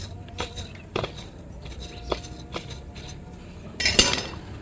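Handling noise from a potted plant being held and moved: scattered light clicks and taps, and a short louder rustle about four seconds in.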